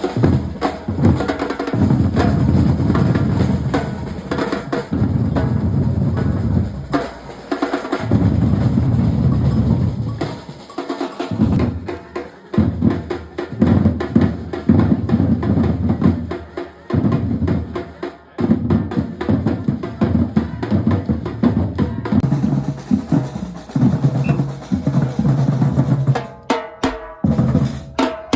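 Batucada drum ensemble playing a driving rhythm on deep bass drums and snare drums, with a brief break about halfway through and sparser strokes near the end.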